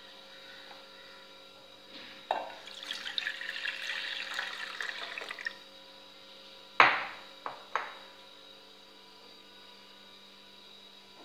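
Milk poured from a glass jar into an aluminium saucepan, splashing for about three seconds. Then a sharp clack and two lighter knocks, the loudest sound.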